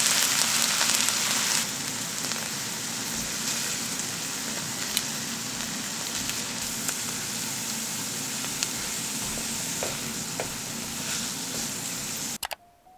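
Cod fillets and greens sizzling in oil and sauce in a frying pan, with a few light clicks of tongs against the pan as the fish is turned. The sizzle is louder for the first second and a half, then steady, and cuts off suddenly near the end.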